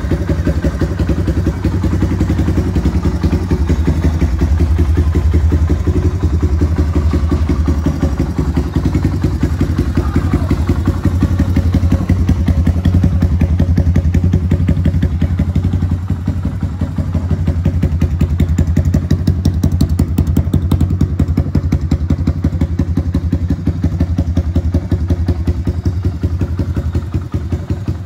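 Suzuki DR350's single-cylinder four-stroke engine idling steadily, with an even, rapid thumping from the exhaust.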